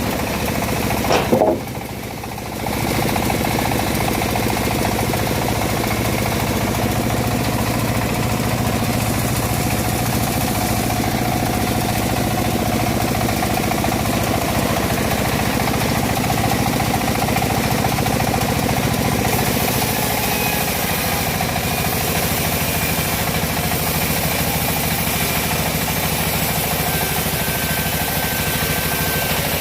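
Engine of a homemade bandsaw mill running steadily under load, a loud continuous machine noise with a low steady hum, briefly dipping about two seconds in before picking back up.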